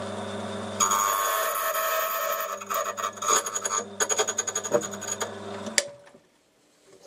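Electric key-cutting machine running as its cutter wheel mills a notch into a key blank. This is the last cut of a duplicate key, pin 5 to depth size 4. A steady rasping cut of about two seconds is followed by a series of shorter scraping passes, then the motor is switched off and spins down about six seconds in.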